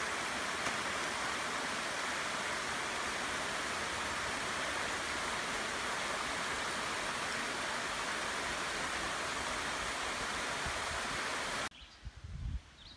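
A small spring-fed waterfall splashing steadily into the river as a constant rush of water. Near the end it cuts off abruptly, leaving a few low thumps and faint bird chirps.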